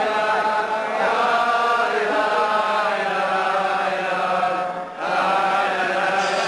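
Slow chanted singing by voices, long held notes with a brief break about five seconds in.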